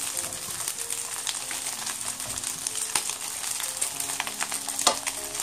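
Rice and scrambled egg sizzling and crackling in a nonstick frying pan over a high gas flame as they are stirred with a plastic rice paddle. There are a couple of sharper knocks of the utensil against the pan, one about three seconds in and one near the end. Soft background music plays underneath.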